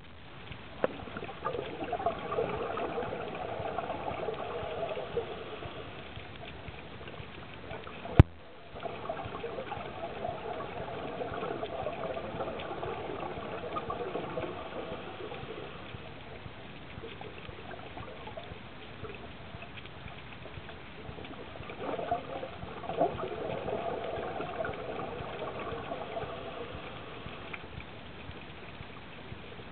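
Bubbling and gurgling of a diver's exhaled breath heard underwater, in three long bursts some ten seconds apart, with one sharp click about eight seconds in.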